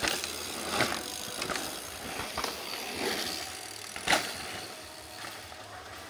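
Downhill mountain bikes passing on a dirt track: tyres scrubbing through loose dirt, with several sharp knocks and rattles from the bike, the loudest about four seconds in.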